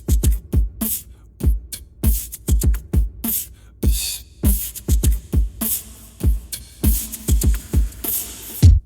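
Music: a sparse, bass-heavy drum beat of deep kicks and sharp high hits, with little else.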